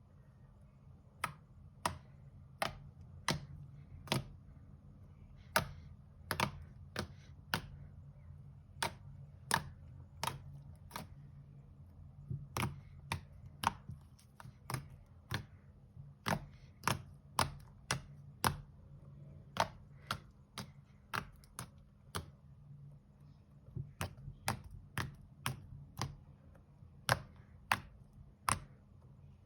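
A series of sharp, irregular clicks, about one to two a second, over a steady low hum.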